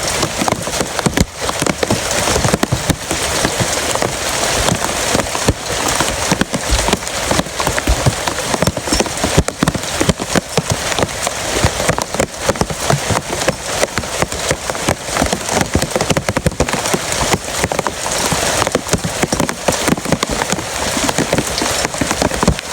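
Heavy rain falling steadily: a dense hiss of rain with many sharp individual drop hits on a hard surface.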